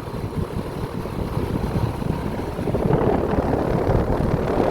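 Small Ruud central air-conditioner condensing unit running, its outdoor fan and Copeland scroll compressor giving a steady rushing hum over a low rumble, growing louder about three seconds in.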